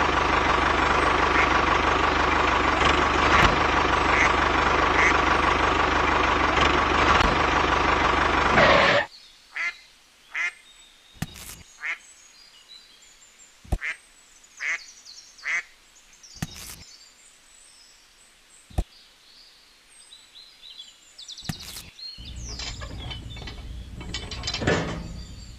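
A loud steady noise that cuts off suddenly about nine seconds in, then a run of sharp clicks and knocks from small plastic toy parts being handled and fitted together.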